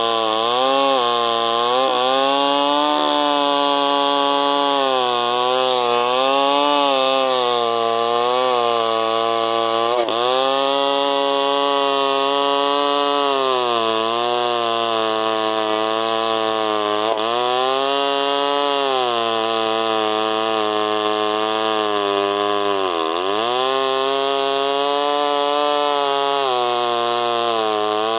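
Echo 1201 two-stroke chainsaw cutting through thick timber under load. The engine note keeps sagging and recovering as the chain bites, with a deep drop in pitch near the end.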